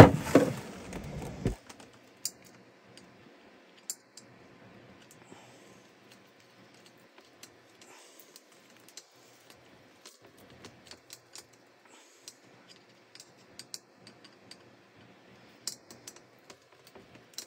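Scattered light clicks and taps of a screwdriver working a metal hose clamp, tightening a cooling-system pressure tester's adapter onto a marine diesel's heat exchanger hose. A louder rustle of handling fills the first second and a half.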